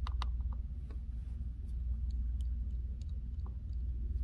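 A steady low hum, with a few short clicks in the first half-second and scattered faint ticks after: a precision screwdriver working the tiny screws out of a MacBook Pro's hinge bar.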